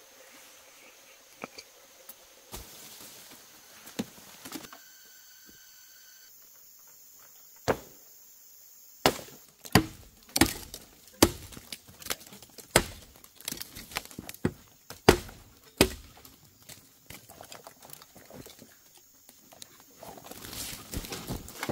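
Hatchet chopping into bamboo: a few scattered knocks at first, then a run of sharp chopping blows, more than one a second, for several seconds in the middle.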